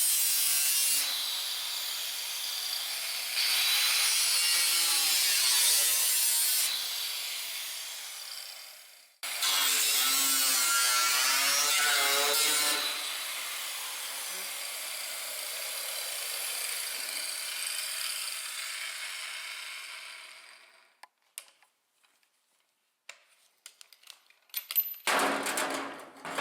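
Handheld power grinder working the rusted sheet-metal tunnel of a 1971 Ski-Doo Elan: a loud, harsh grinding run that winds down, then starts again and slowly dies away. Scattered knocks and one short burst near the end.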